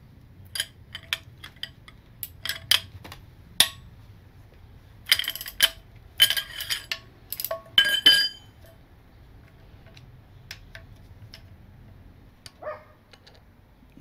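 Steel wrenches clinking and clanking against each other and the engine's metal as they are fitted to and taken off the cam gear bolts: a run of sharp, ringing metallic clinks, loudest and thickest in the middle, thinning to a few faint ticks near the end.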